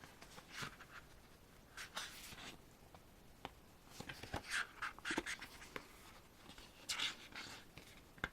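Paper rustling and pages being handled and turned in a K-pop album's photobook, with a few light taps and clicks.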